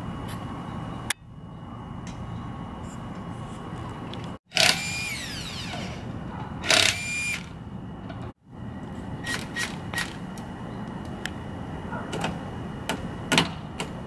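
Cordless impact wrench running in two short bursts about two seconds apart, each about a second long with a steady whine, the first falling in pitch as it spins down. Light clicks and taps follow later.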